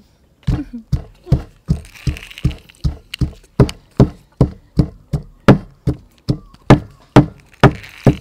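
Pestle pounding garlic and chillies in a mortar for a dipping sauce, with steady rhythmic thuds about three a second starting about half a second in.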